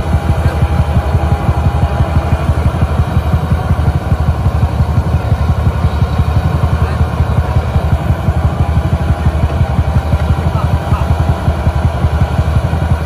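Rice combine harvester's diesel engine running steadily, a dense low rumble with rapid even pulsing, as the machine works through deep mud.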